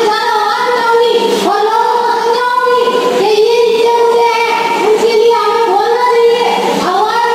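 A woman singing a Rajasthani folk song in a high voice, with long held notes that each slide up into place.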